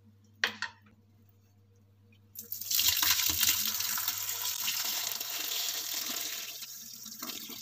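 Soaking water pouring out of a plastic jar of cracked green olives into a metal strainer in a sink. The water is being drained off to take away the olives' bitterness, a stage in curing them. A brief knock of the jar being handled comes first, then the pour starts about two and a half seconds in, runs steadily and thins out near the end.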